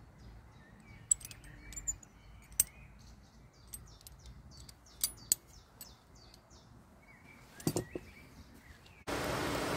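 Sharp metallic clicks of a hand-forged steel animal trap's parts as it is handled and set down on a wooden table, a handful of them spread over several seconds, with birds chirping faintly in the background. Near the end a loud, steady rushing noise starts abruptly.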